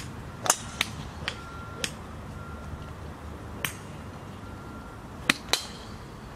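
Golf clubs striking balls on a driving range: a series of sharp, separate clicks, about eight in all, with the loudest pair close together near the end as the golfer completes her swing.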